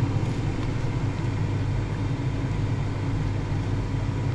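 Ninja dual-basket air fryer running, its fan making a steady hum with a low rumble.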